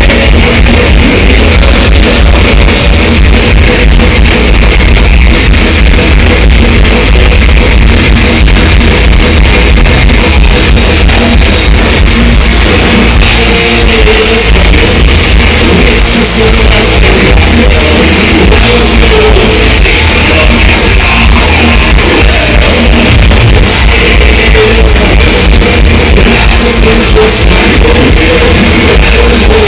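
Thrash metal played live by a full band: distorted electric guitars, bass and drums, loud and unbroken.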